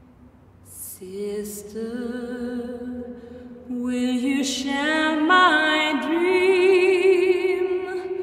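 Layered a cappella female vocals in a soul-gospel song. A held note fades out, and after a brief breath the voices come back in harmony about a second in. They swell about four seconds in into long held notes with vibrato.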